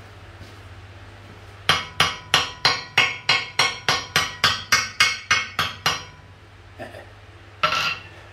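Hand hammer striking the face of a freshly mounted 80 kg Beamish anvil, about fifteen quick blows at roughly three a second, each ringing briefly, then a short clatter near the end as the hammer is set down on the anvil. The anvil is bolted down tight to its new stand.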